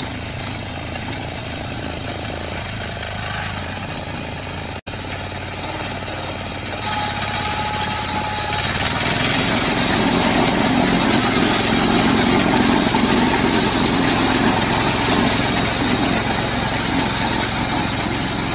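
Reaper binder's engine running steadily as the machine cuts wheat. The sound drops out for an instant about five seconds in, then comes back louder from about seven seconds on.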